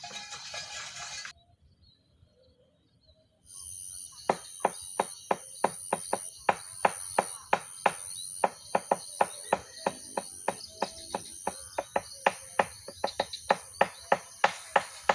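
Insects trilling with a steady high-pitched pulsing buzz, joined by a long run of sharp, evenly spaced clicks about two to three a second. Both come in after a short silence about a second in.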